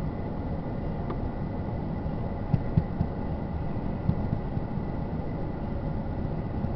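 Steady low rumbling background noise with a few faint knocks about two and a half, three and four seconds in; no ringtone sounds yet.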